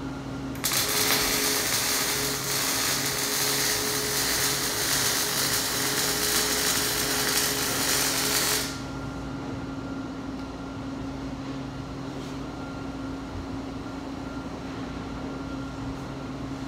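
Electric welding arc on a steel axle housing: a steady crackling hiss that starts abruptly about a second in and cuts off suddenly after about eight seconds. A steady low hum runs underneath throughout.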